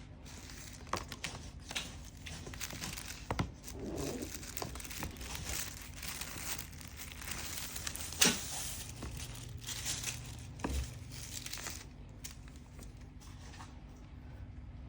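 Packaging being handled and opened: crinkling and rustling with sharp crackles and tearing, the loudest snap about eight seconds in. It dies down about twelve seconds in.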